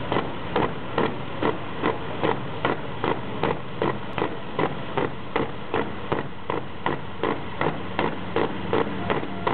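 Pulling truck's diesel engine running flat out under heavy load as it drags the sled, with a heavy beat a little over twice a second throughout.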